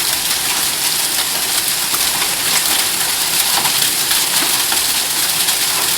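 Hail and heavy rain pelting down: a dense, steady downpour hiss full of many sharp little ticks from hailstones striking surfaces.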